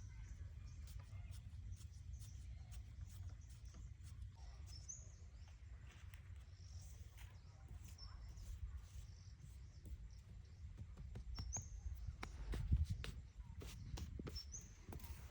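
Short, high bird chirps every few seconds over a low steady rumble of outdoor noise, with a few sharp knocks about twelve seconds in.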